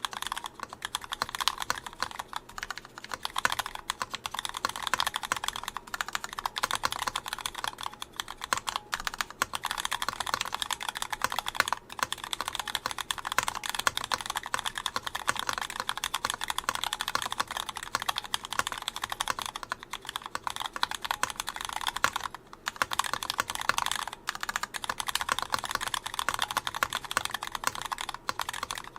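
Continuous typing on a Gon MX Mini 75% mechanical keyboard with stock retooled Cherry MX Black linear switches, unlubed, in a Sorbothane-filled case: a dense stream of key clacks with a short break about three-quarters of the way through.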